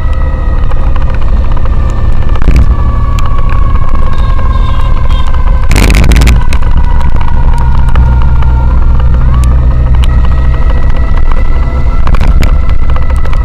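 Motorcycle riding at speed, with heavy wind rumble on the microphone over the engine. The engine's pitch sags slowly, then rises again a little past halfway, and a few short gusts hit the microphone.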